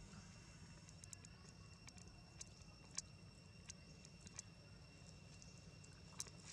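Near-quiet forest ambience: scattered small clicks and crackles, the loudest about three seconds in and again near the end, over a faint steady high-pitched tone.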